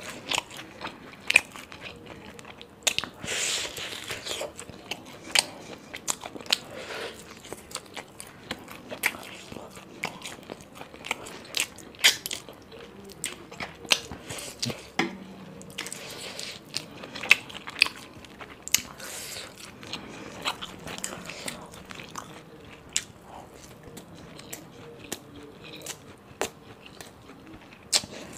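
Close-miked eating sounds of chicken biryani eaten by hand: chewing, with many short sharp mouth clicks scattered throughout.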